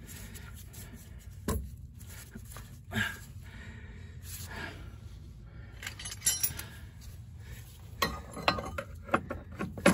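Metal tools and suspension parts clinking and knocking as an upper ball joint is being fitted: a knock about a second and a half in, another about three seconds in, then a busier run of clinks from about six seconds, densest near the end.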